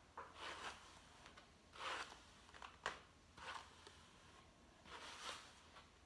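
Faint swishes of a Wet Brush's bristles dragged through long straight hair, about five irregular strokes, with one sharp click about three seconds in.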